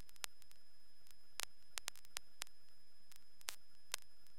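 Faint steady hiss of an aircraft's radio/intercom audio feed, with scattered sharp static clicks, about eight irregular ones, over a faint high steady whine.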